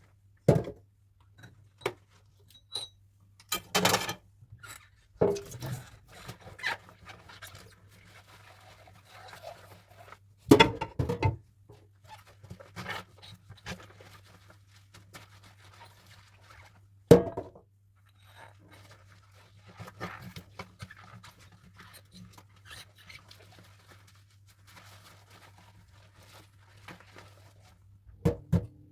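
Dishes being handwashed: irregular clinks and knocks of crockery set down and handled, with softer scraping and rubbing between them, over a faint steady low hum.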